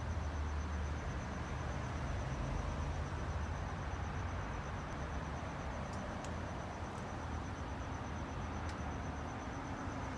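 A cricket trilling steadily: one high, rapidly pulsing tone that does not change, over a low steady rumble.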